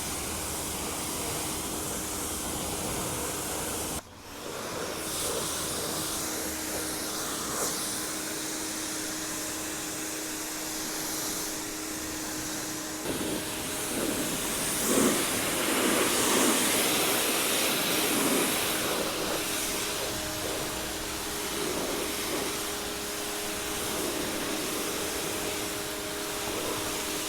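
AIVOLT electric pressure washer running, its motor tone under the steady hiss of the water jet. The spray drops out briefly about four seconds in, and from about thirteen seconds the motor's tone changes and the spray grows louder and more uneven as it hits the surface.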